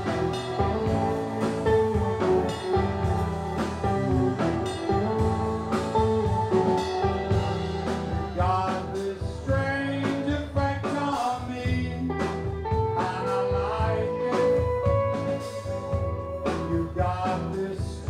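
Live rock band playing 1960s-style music: drum kit, electric guitar and a man singing into a microphone.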